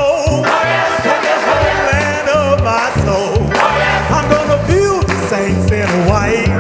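Gospel choir song with a live band: a male soloist sings wavering, drawn-out lines over the choir and a steady bass line, with hand clapping along.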